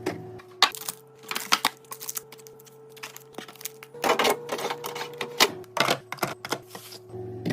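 Plastic food packaging and containers being handled and set down: a busy run of clicks, taps and short rustles.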